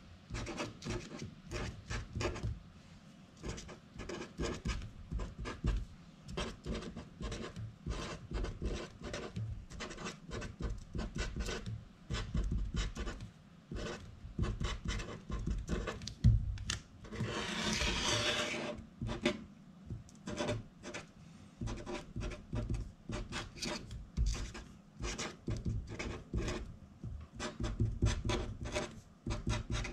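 Marker pen writing on paper: the tip rubs and scratches across the sheet in quick short strokes, letter after letter. Just past halfway there is one longer continuous stroke lasting about a second and a half.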